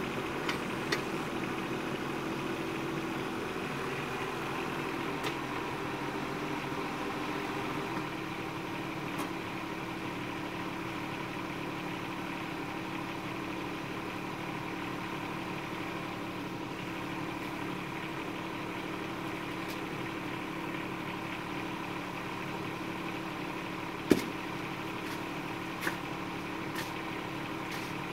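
Bobcat 418 mini excavator's diesel engine idling steadily, its sound shifting to a lower, steadier note about eight seconds in. A loud knock and a few sharp clicks stand out near the end.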